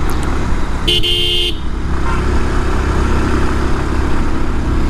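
Single-cylinder Bajaj Pulsar 150 motorcycle engine running steadily on a hill climb, heard from the rider's microphone. About a second in, a vehicle horn toots once, briefly.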